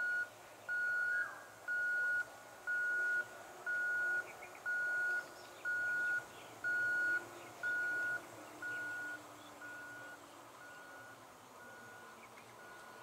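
An electronic warning beeper: a single steady high tone, about half a second on and half a second off, repeating about once a second for around ten beeps and fading out about ten seconds in.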